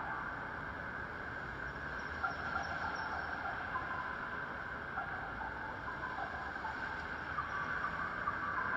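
Street ambience of a busy city intersection in the rain: cars crossing on the wet road over a steady hiss, with short faint chirps scattered through it.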